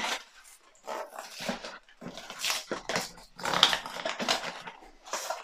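Crinkling and rustling of packaging in short irregular bursts as a small cardboard blind box is opened and the foil wrapper inside is torn open.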